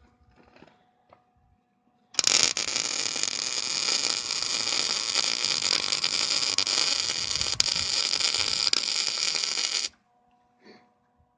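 Electric arc welder laying a weld on the engine mounting plate: a loud, steady crackling arc that starts about two seconds in, holds for about eight seconds and cuts off sharply.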